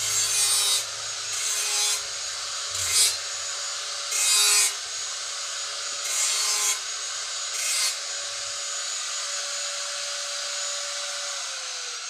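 Angle grinder running with a steady whine, its disc biting into the work in six short bursts of harsh grinding over the first eight seconds. It then spins freely, and its pitch starts to fall near the end as it winds down.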